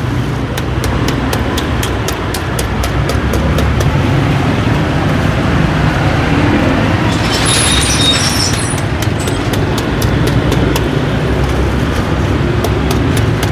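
Steady street traffic noise with a low rumble and a run of faint, evenly spaced ticks. A brief cluster of high whistling tones comes about seven to nine seconds in.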